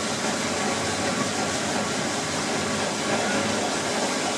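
Water-driven sawmill machinery running, its water wheel drive, shafting and belt making a steady mechanical noise.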